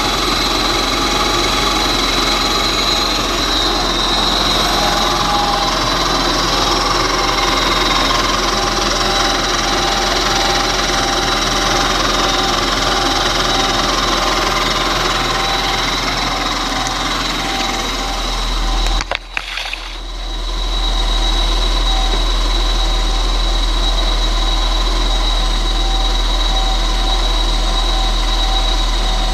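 Supercharged car engine idling steadily on its first start-up after the build, with a constant high-pitched whine over the running. The sound drops out briefly about two-thirds of the way through, then carries on unchanged.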